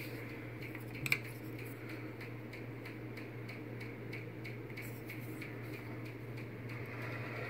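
A steady low hum with one sharp light click about a second in, typical of a diecast metal model airplane being handled and set against its stand.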